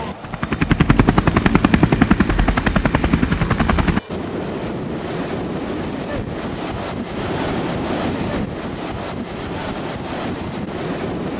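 Loud, rapid, evenly spaced mechanical pulsing, like a rotor, for about four seconds, cut off abruptly. After the cut comes a steady rush of wind on the microphone and breaking surf.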